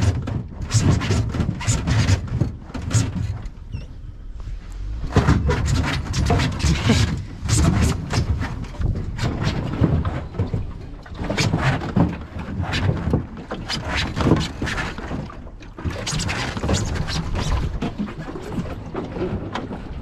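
Boat and trailer jolting down a bumpy boat ramp: irregular bumps, knocks and rattles over a low rumble, uneven in loudness throughout.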